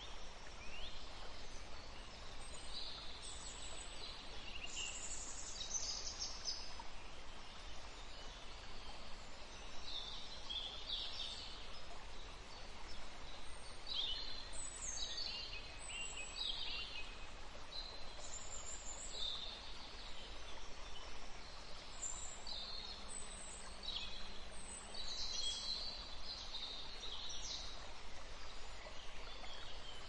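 Eurasian siskins calling: short high chirps and quick twittering phrases in scattered bursts, many sliding downward in pitch, over a steady background hiss.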